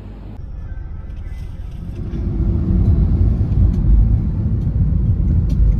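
Car driving along a road: a steady low rumble of engine and road noise, growing louder about two seconds in.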